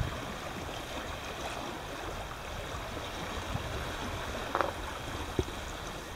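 Small lake waves washing among shoreline boulders, heard as a steady rushing hiss, with two faint brief knocks near the end.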